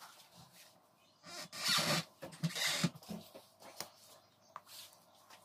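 A small metal bottle cap pressed down through donut dough onto a wooden board to cut the hole, with a scratchy scraping for about a second and a half and a few soft handling clicks.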